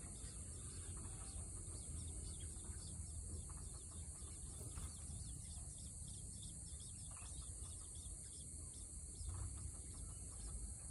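Faint, short bird chirps repeating throughout, over a steady high-pitched drone and a low rumble.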